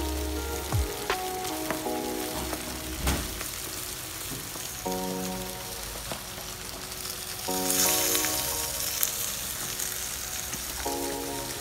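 Foil-wrapped fish sizzling on a hot pan over a gas burner, with a few sharp clicks and taps as a knife pokes into the foil to check whether it is cooked. The sizzle swells into a louder hiss about eight seconds in. Background music plays over it.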